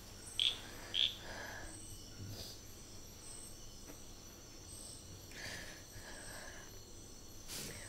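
Crickets chirping faintly in a steady night ambience, with a couple of short soft sounds about half a second and a second in.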